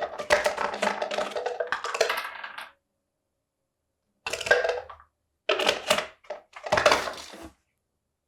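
Plastic Parmesan bottle with a walnut inside being rattled and knocked about, a dense clatter of quick knocks in several bursts, the longest over the first two and a half seconds.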